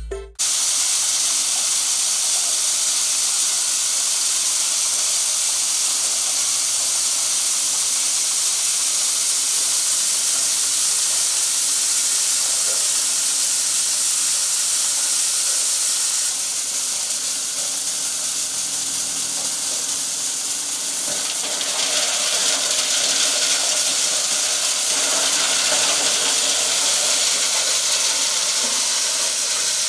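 Engine-driven 8 hp chopper machine running under load as material is fed through it, a steady high-pitched rushing noise of the blades and chopped material blowing out of the chute. The noise dips slightly just past the middle and picks up again about two thirds in.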